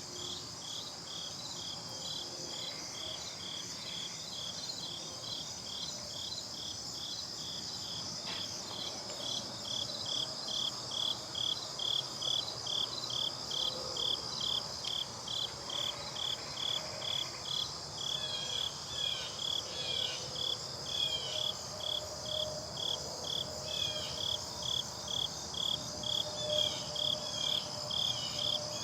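Insects chirping: a rhythmic pulsed chirp about twice a second over a steady high trill, the pulses growing louder about a third of the way in.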